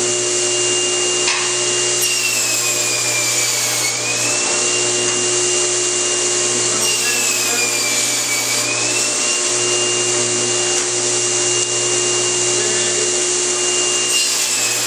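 Table saw running with a Micro-Kerf 40 thin-kerf blade cutting through a thick hardwood board: a steady motor hum and a high blade whine. The whine sags in pitch as the blade takes the load of each cut and comes back up when it is free, about 3 to 4 seconds in, about 8 seconds in, and again near the end.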